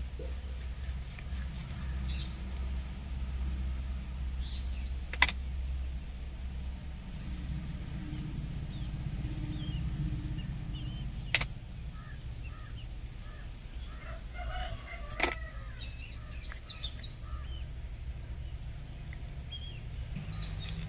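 Small metal carburettor parts and a tool clicking sharply three times, a few seconds apart, as a Walbro carburettor is taken apart, over a steady low hum.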